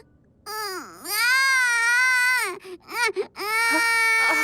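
A toddler's voice crying: after a brief silence, a long wavering wail, a few short choked sobs, then a second drawn-out wail.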